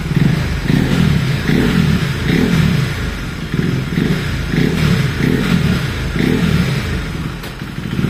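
KTM 390's single-cylinder engine revved through a newly fitted exhaust in about eight quick throttle blips, dropping back toward idle near the end.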